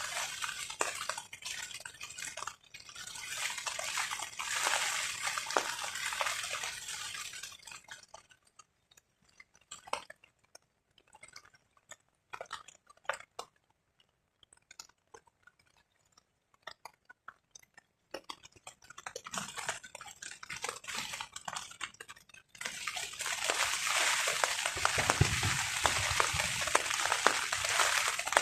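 Rain on a tarp: a dense hiss of drops that thins to scattered single drips with quiet between them, then heavy, steady rain comes back suddenly about four-fifths of the way through, with a brief low rumble soon after.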